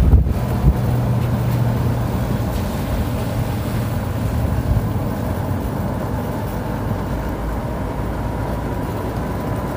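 Golf cart driving along at a steady pace: a steady rumble of the cart and its tyres on the road, with a faint steady whine above it.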